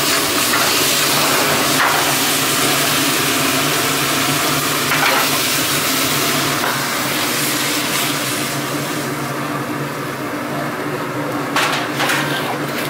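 Braised pig's trotters sizzling in a pan over a gas burner flame, over a steady low hum. A few knocks of the pan, and the sizzling eases after about nine seconds.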